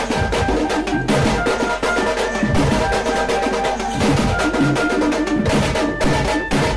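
Background music: a steady, dense drum beat with a melody of short held notes over it.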